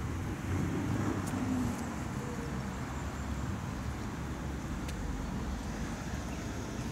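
Steady hum of road traffic: cars driving along a city street.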